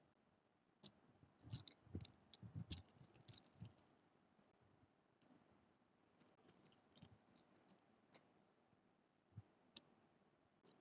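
Near silence: room tone with faint scattered clicks and soft taps, bunched about one to three and a half seconds in and again around six to seven and a half seconds in.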